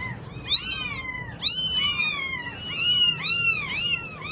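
Kittens mewing non-stop: short, high-pitched mews that rise and fall, a few every second, with two or more voices often calling over each other.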